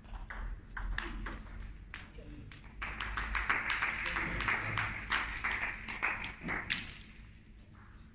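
Table tennis ball clicking off the rubber bats and the table in a rally for the first few seconds. Then about four seconds of dense clapping after the point ends.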